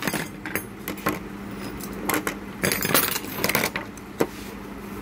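Small metal tools and parts clinking and rattling as they are handled, with a busy run of clinks about two to four seconds in and one sharp click near the end.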